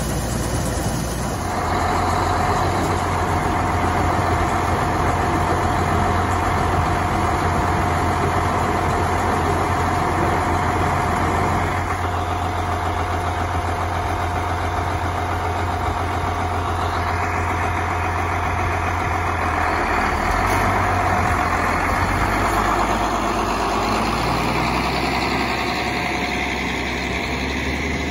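Challenger 85C tractor's diesel engine running steadily while it drives a KINZE 450C grain wagon's chain-paddle conveyor unloading corn. A steady whine sits over the engine for about the first two-thirds, and the sound changes several times.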